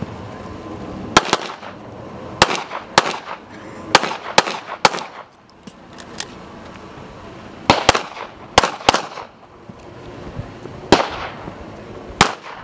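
A pistol firing in competition, a dozen or more sharp shots mostly in quick pairs a fraction of a second apart. The groups are separated by pauses of a second or more as the shooter moves between positions, and each shot leaves a short echo.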